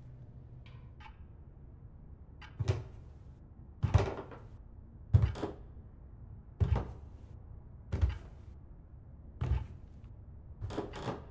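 Slow, heavy footsteps going down a staircase, each step a deep thud, about seven steps roughly a second and a half apart, beginning a few seconds in, over a low steady rumble.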